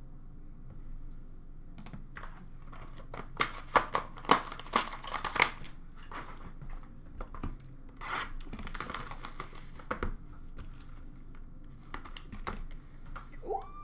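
Plastic wrapping and cardboard packaging of a hockey card box being torn and crinkled by hand: clusters of sharp crackles that start a couple of seconds in, loudest early on and again around the middle, with a few last ones near the end.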